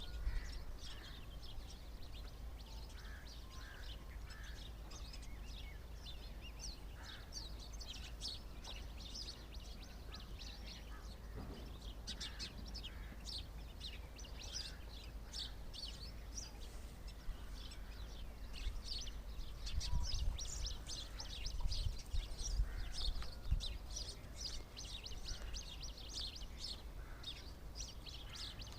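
A flock of small birds chirping rapidly and continuously, many overlapping high chirps. Beneath them runs a steady low rumble, which swells with a few dull knocks about two-thirds of the way through.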